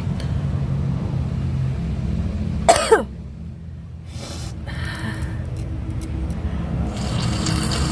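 A single loud, short sneeze about three seconds in, set off by tickling the nose with a cotton bud during a head cold, over a steady low background rumble.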